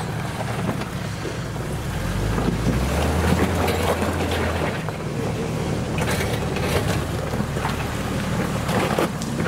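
Jeep Wrangler TJ's engine pulling at low speed up a steep rocky climb. The revs rise about two seconds in and ease back near the middle. Loose rocks crunch and knock under the tyres.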